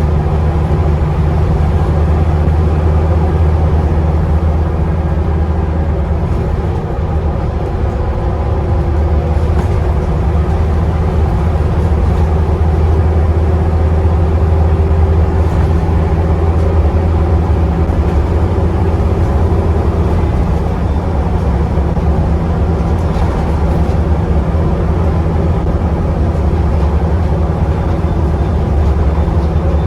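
Scania Enviro 400 double-decker bus's diesel engine running steadily under way, a continuous low drone heard from inside the lower deck.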